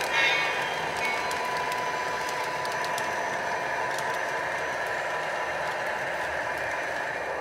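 Lionel O-gauge model trains running on three-rail track: a steady hum and whine from the electric motors and rolling wheels, with scattered light clicks from the rail joints.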